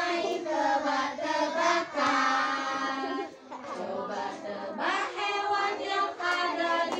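Young children singing a song together in a group, with a brief break about three and a half seconds in.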